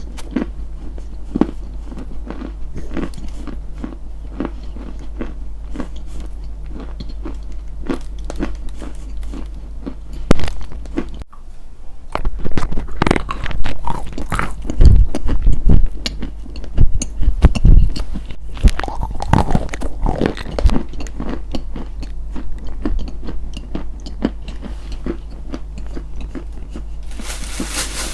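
Close-miked biting and chewing of something crunchy, with sharp crackling crunches throughout. The crunches are heaviest for several seconds in the middle, over a steady low hum.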